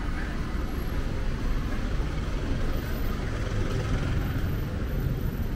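Low, steady rumble of street traffic, with a vehicle's engine growing louder a little past the middle.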